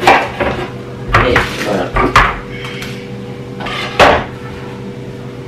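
Kitchen knife cutting through an aubergine and knocking on a wooden cutting board: several sharp knocks at uneven intervals, about a second apart.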